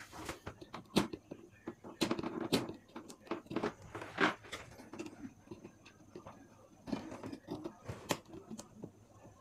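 Scattered light clicks, taps and scrapes of small hand tools working at a TV power-supply circuit board, as a pin of the optocoupler is pried up and lifted free.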